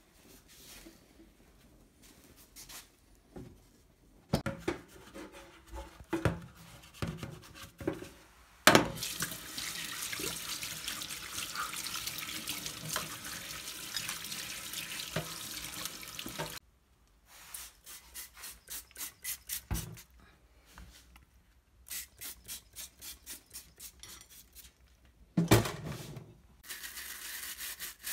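Knocks and clicks from parts of a greasy kitchen hood blower being handled, then tap water running into a stainless steel sink over the plastic squirrel-cage fan wheel for several seconds. After that a brush scrubs in quick, even strokes, about four a second, with a sharp knock near the end and the tap running again.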